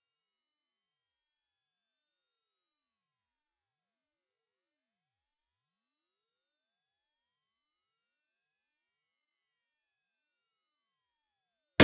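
Hearing-test tone: a single pure sine tone, very high-pitched, rising slowly and steadily in pitch at an even loudness. It is a frequency sweep climbing toward the upper limit of human hearing, the point where listeners find which pitches they can no longer hear.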